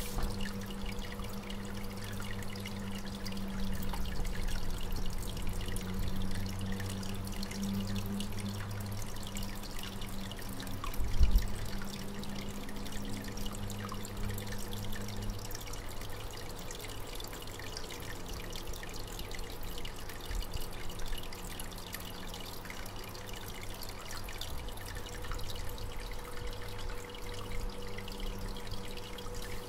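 Aquarium water trickling and splashing steadily, with the low, steady hum of the tank's pump or filter underneath. A soft low bump about eleven seconds in.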